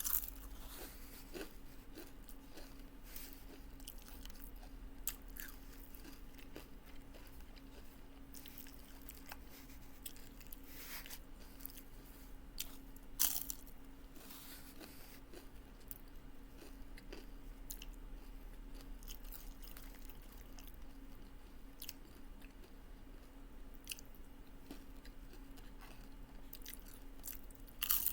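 Close-miked chewing of a crunchy taco salad, with scattered crunching bites; the loudest crunches come about 11 and 13 seconds in. A steady low hum runs underneath.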